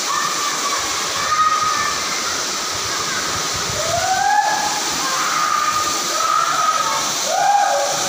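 Waterfall rushing steadily, with a few drawn-out voice-like calls rising over the water noise around the middle and near the end.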